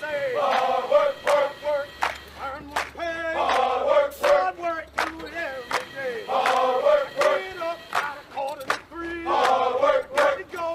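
Background music: a chorus of voices singing over regular drum hits.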